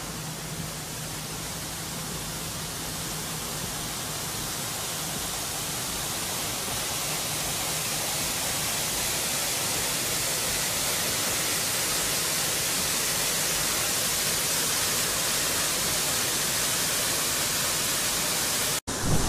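Steady rushing hiss of storm runoff pouring down a roadside retaining wall like a small waterfall, growing slowly louder.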